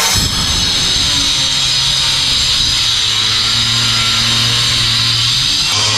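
Handheld electric disc cutter running steadily at full speed with a continuous high whine, cutting into the stone and concrete of a marble-topped kitchen slab.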